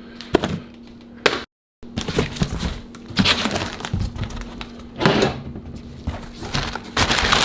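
Workshop handling noises from parts and tools being worked on a dirt bike: a couple of sharp knocks, then scraping and rustling in short bouts, getting denser and busier near the end, over a steady low hum.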